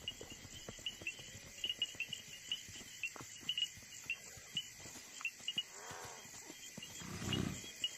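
Field crickets chirping steadily in the night grass, with scattered soft ticks and rustles from animals moving through it. A brief, louder low sound rises and fades about seven seconds in.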